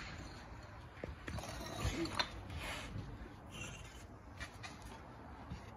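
Concrete pavers knocking and scraping as they are set down on sand and lifted from a stack: a few sharp clacks about two seconds in, with lighter taps and scuffs around them.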